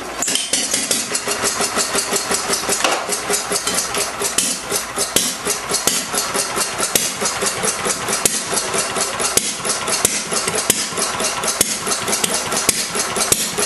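Fairbanks-Morse Z style D 2 hp single-cylinder stationary engine starting right away on a hand-spun flywheel, then running at its lowest speed with a steady rapid clatter of sharp, regular knocks.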